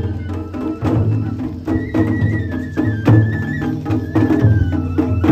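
Japanese festival music (matsuri-bayashi): drums beating a steady rhythm, with a high flute melody that comes in about two seconds in.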